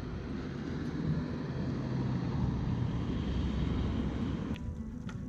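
Car traffic passing on a mountain road: a steady rush of engine and tyre noise that swells a little in the middle. About four and a half seconds in it drops away to a series of sharp ticking clicks.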